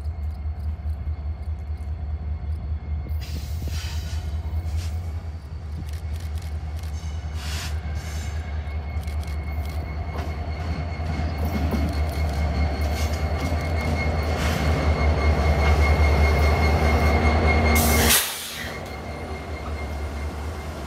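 Train rolling past at close range: a deep steady rumble with rapid wheel clatter and a thin high tone held over it. The sound grows louder, then drops suddenly about 18 seconds in.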